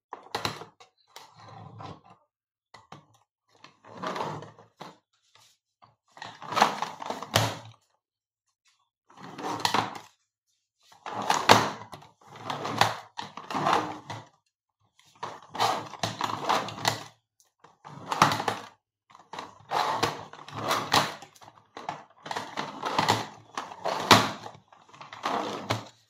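Giant plastic Rubik's cube being turned by hand: bursts of plastic clacking and rattling as the layers rotate, with short pauses between turns.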